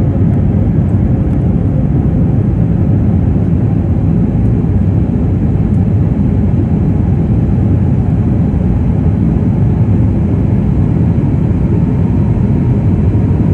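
Steady engine and airflow noise inside a jet airliner's cabin as it climbs out after takeoff, a loud, even drone with most of its weight low down.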